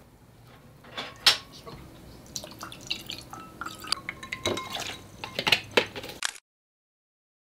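Clinks of dishes and glassware, the sharpest about a second in, then juice poured from a plastic bottle into glasses over ice, with many small clinks of ice against glass. The sound cuts off about a second before the end.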